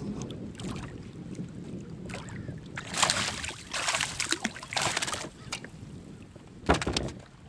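Bursts of splashing and handling noise from a kayak while a hooked fish is played on rod and reel, with one sharp knock near the end.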